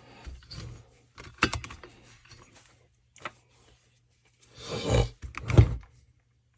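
Handling noises of sandpaper and trimmer parts on a workbench: a sharp knock about a second and a half in, a small click, then a louder scuffing and rustling with a sharp knock near the end.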